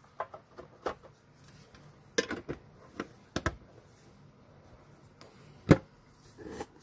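Scattered light clicks and taps from handling a trading-card tin and its packaged contents, with the sharpest knock a little before the end.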